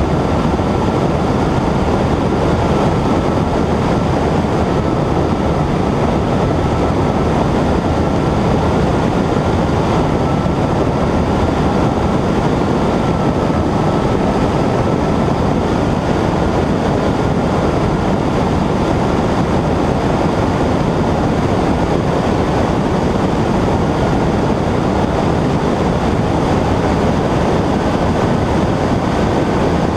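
Cessna 120's engine and propeller running steadily in level flight, a constant loud noise with a faint high tone that holds nearly the same pitch throughout.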